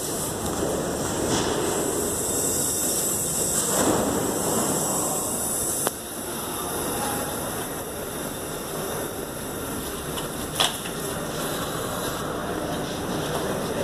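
New York City Subway train moving along the platform: steady rumble and hiss of the cars running on the rails, with a sharp click about six seconds in and another about ten seconds in.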